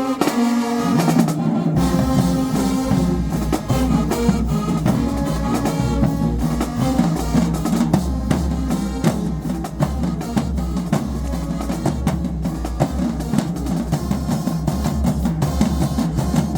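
High school marching band playing: pitched horn lines over a driving drumline of snares and bass drums. A heavy low bass comes in about two seconds in.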